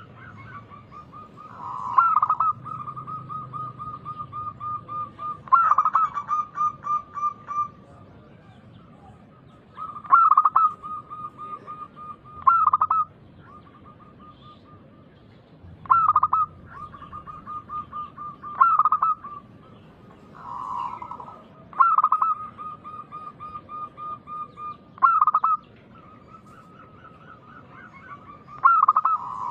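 Zebra dove (perkutut) cooing loudly: song phrases repeated every three seconds or so, each a sharp accented note followed by a fast, even run of short coos.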